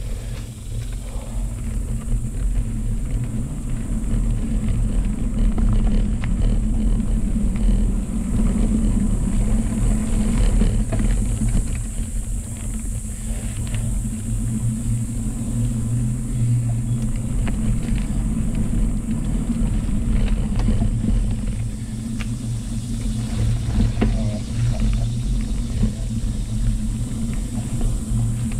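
Low, steady rumble of a mountain bike riding a dirt trail: knobby tyres rolling over the dirt and wind over the handlebar-mounted camera's microphone, with occasional small knocks from bumps.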